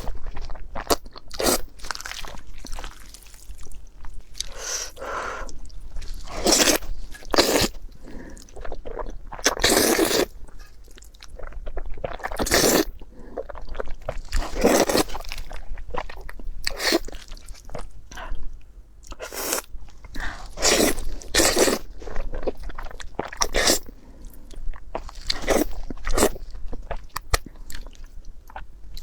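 A person eating crunchy food close to the microphone: loud irregular crunches and chewing, one or two bites a second.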